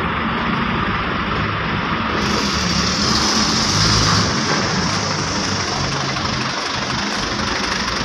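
Heavy cargo truck's diesel engine running at low speed as it drives up the ferry's loading ramp, over a steady mechanical hiss; a higher hiss joins about two seconds in.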